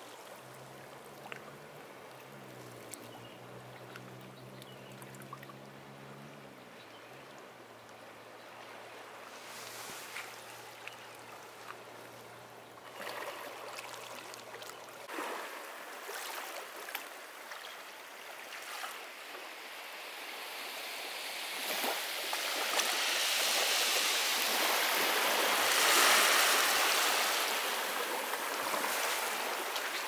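Sea waves washing onto the beach, with a surge of surf swelling up and breaking loudest in the last third before easing. A low steady engine hum sounds under the water for about the first half, then stops.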